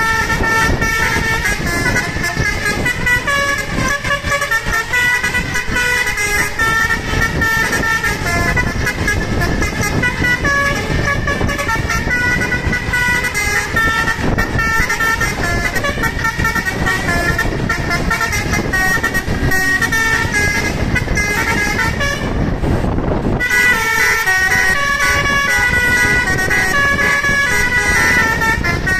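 A bus's basuri telolet horn, a multi-note musical air horn, plays a tune in stepping notes over a low rumble. The tune breaks off for about a second roughly three quarters through, then starts again.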